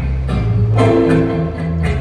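Instrumental music with a deep, steady bass line and held mid-range notes, a new phrase entering about three-quarters of a second in.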